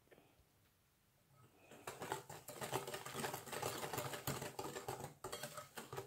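Wire balloon whisk beating a runny mix of eggs, sugar and oil in a glass bowl: a fast, rattling run of clicks from the wires striking the glass. It starts about a second and a half in.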